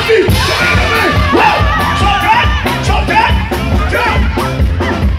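Loud live party music with a steady beat, a singer on a microphone and crowd voices over it.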